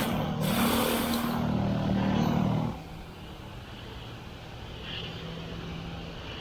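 Small gasoline engine running at high revs, then dropping back to a quieter, lower run about two and a half seconds in.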